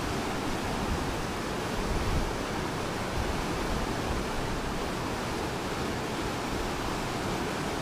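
Steady rush of whitewater at a waterfall, pouring through a rocky channel.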